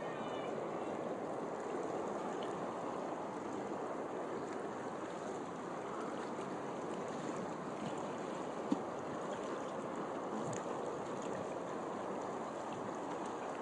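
Steady wash of moving open water, with one short knock about two-thirds of the way in.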